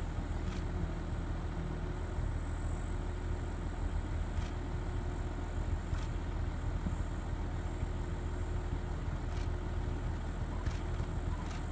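Vehicle engine idling: a steady low rumble, with a few faint clicks.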